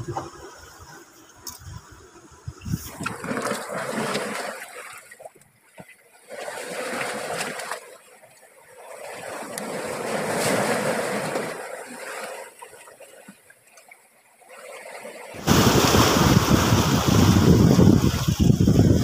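Sea waves washing over the rocks, swelling and fading every two to three seconds; about fifteen seconds in, a sudden louder rush of surf with wind buffeting the microphone.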